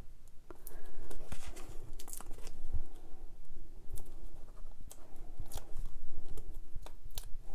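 Paper-craft handling: Dimensionals foam adhesive dots being peeled from their backing sheet and stuck onto a cardstock sentiment. It is an irregular rustling and crinkling of paper, with scattered small clicks and taps.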